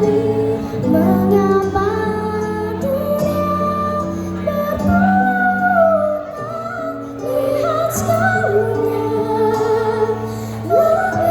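Choir singing slow, held notes over a low sustained accompaniment.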